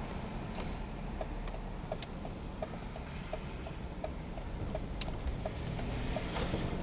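Car turn-signal indicator clicking evenly, about three clicks a second, over the low rumble of the car heard from inside the cabin.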